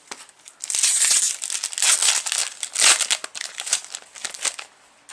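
Foil wrapper of a Magic: The Gathering booster pack crinkling and tearing as hands rip it open. A dense run of loud crackles starts just under a second in and stops shortly before the end.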